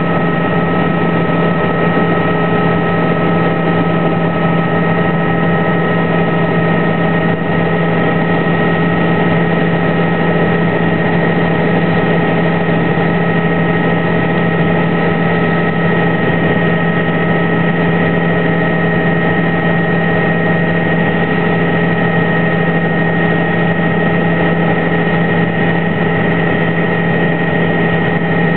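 Helicopter in flight heard from inside the cabin: a loud, steady drone of engine and rotors with a low hum and several high whining tones held over it.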